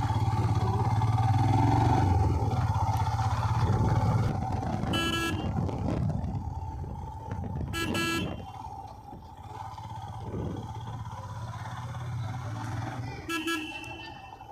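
Royal Enfield Himalayan's single-cylinder engine running at low speed, louder in the first few seconds then easing off. A vehicle horn sounds three short toots, about five, eight and thirteen seconds in.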